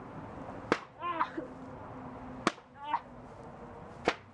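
Three sharp smacks of a flat board striking a person, well spaced about a second and a half apart, each followed by a short pained yell.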